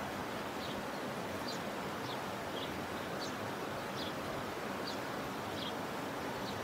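A small bird chirping repeatedly, short high notes every half second to a second, over a steady hiss of background noise.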